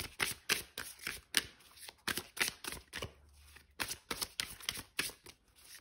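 An oracle card deck being shuffled by hand: a quick, irregular run of soft card flicks and slaps, with a short lull about halfway through.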